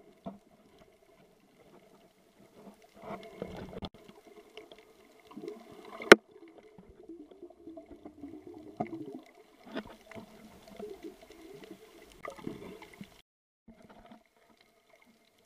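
Muffled underwater sound through a camera's waterproof housing: a steady low hum with gurgles and scattered knocks, and one sharp loud knock about six seconds in.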